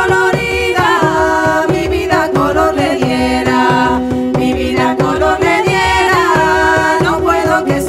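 Several women singing together in a traditional folk style over a steady held low note that drops to a lower pitch about three seconds in, with a regular beat on a frame drum.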